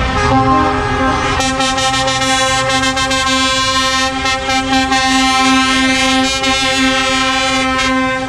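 Lorry air horns sounding in one long, held blast as convoy trucks pass, over the low rumble of their diesel engines.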